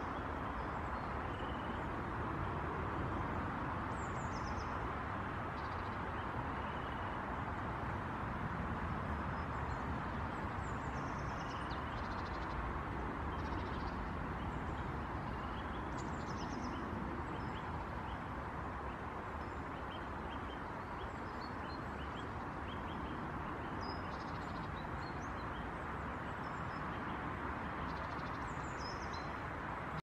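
Short, high-pitched calls of small songbirds, many times and scattered throughout, some in quick series, over a steady low background rumble.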